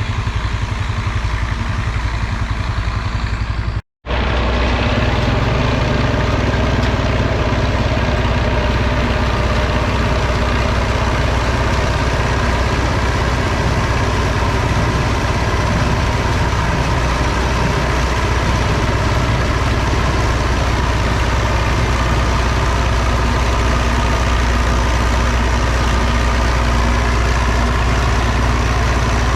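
Tractor engine running steadily at a constant speed, with a brief cut to silence about four seconds in, after which it continues a little louder.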